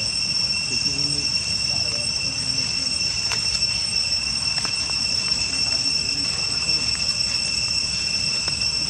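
Insects droning steadily in a continuous high-pitched chorus.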